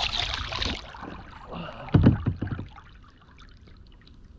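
Kayak being paddled: water splashing off the paddle for the first second, then a dull thump with a few short knocks about two seconds in, then quieter water sounds.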